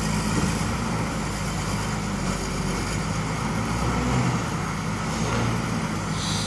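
Komatsu WA320 wheel loader's diesel engine running steadily: a low drone whose pitch shifts slightly about four seconds in.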